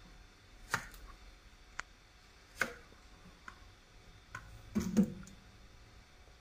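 Sharp kitchen knife cutting through Thai eggplant and striking a plastic cutting board: separate crisp cuts roughly one a second, with a heavier knock about five seconds in.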